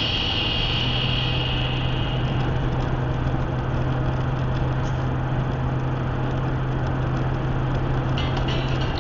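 Highway driving noise inside a car: a steady rush of tyre and wind noise with a steady low hum, which cuts off just before the end.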